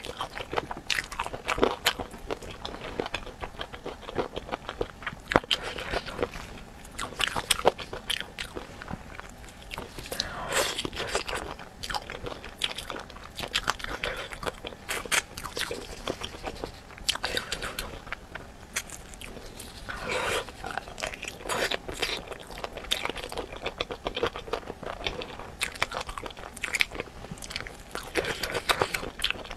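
Eating spicy chicken feet: irregular sharp crunching bites and chewing throughout.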